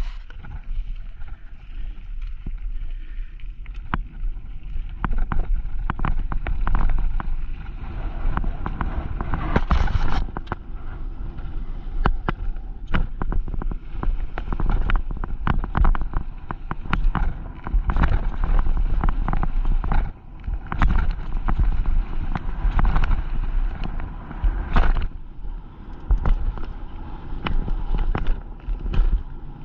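Mountain bike riding down a rough bike-park trail: wind buffeting the microphone, with constant rattling and knocking from the bike and tyres over rocks and gravel, heavier in several rough stretches.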